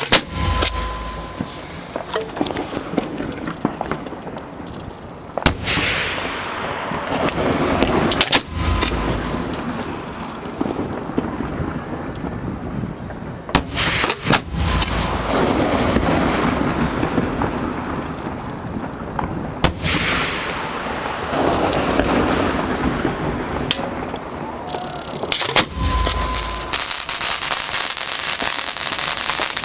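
Aerial fireworks shells launching and bursting close by, fired from the barge: sharp cracks and low booms every few seconds, the heaviest booms near the start, about a quarter and halfway in, and near the end, with a steady wash of noise from the bursts in between.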